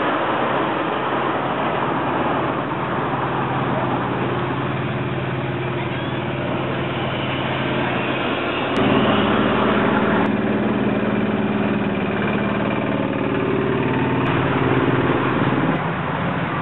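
Ride-on miniature railway locomotives running past on the track, with a steady motor note. About nine seconds in the note jumps abruptly higher and holds until near the end.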